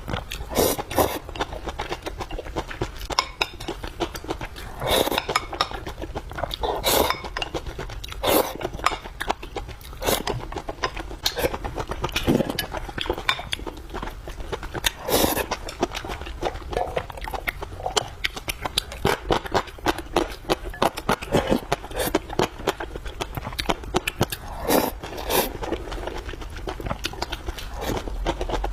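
Close-miked eating sounds: a person chewing and biting food with many irregular wet, clicky mouth sounds, and now and then a clink of a utensil against a dish.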